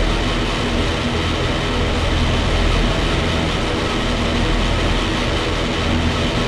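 Atmospheric black metal recording: a dense, steady wall of distorted sound with a low drone underneath.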